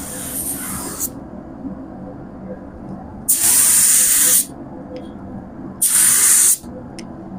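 Compressed-air paint spray gun spraying filler primer in passes. A hiss cuts off about a second in, then two short bursts follow, the first about a second long and the second a little shorter.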